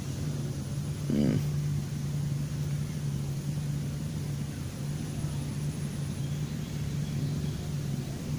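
A steady low motor hum runs in the background, with a short vocal sound about a second in.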